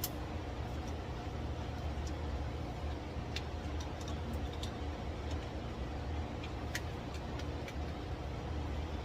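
A steady low mechanical hum, with scattered light clicks and ticks.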